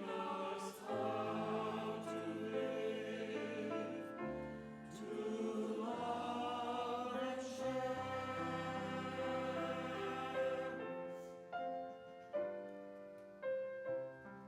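A group of voices singing a hymn together over keyboard accompaniment. The voices stop about eleven seconds in, and the keyboard plays on alone with separate fading notes.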